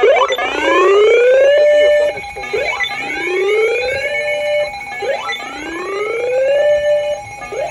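Alarm siren sweeping up in pitch three times, each rise lasting about a second and a half before breaking off and starting again, with a faint steady tone underneath.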